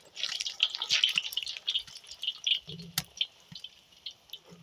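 Carrot strips deep-frying in hot oil in a kazan, sizzling and crackling with many small pops, busiest in the first second or two. A single sharp knock about three seconds in.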